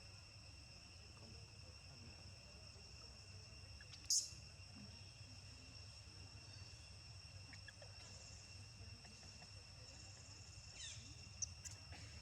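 Steady high-pitched drone of insects, crickets or cicadas, holding several even tones. About four seconds in comes one sharp, loud high chirp, and near the end a few quick falling chirps and clicks.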